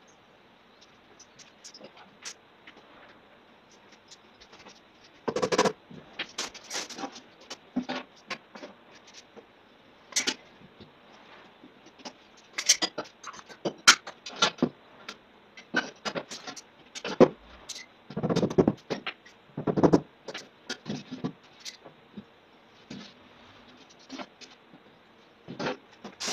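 Gypsum wall blocks being handled and set in place: irregular knocks, clicks and scrapes of plaster on plaster and on the floor.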